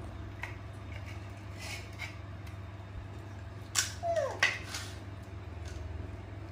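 Young macaques handling and eating halved dragon fruit: soft clicks and rustles of fruit and plates, over a steady low hum. About four seconds in comes a sharp click, then a short squeak falling in pitch, then another click.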